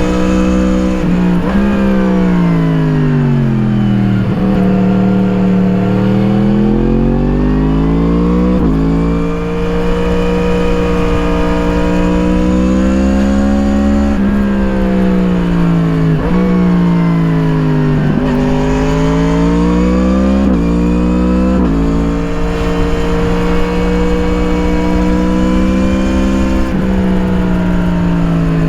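2017 Yamaha MT-10's crossplane inline-four, through an Akrapovič slip-on exhaust, heard onboard while riding: engine pitch repeatedly drops on deceleration into corners and climbs again on acceleration, with sudden breaks at gear changes. Low wind rush on the microphone.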